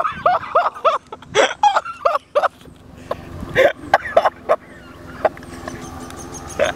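A person laughing hard in quick, repeated pitched bursts, breaking into scattered gasps and short laughs, then dying down to faint outdoor background about two seconds before the end.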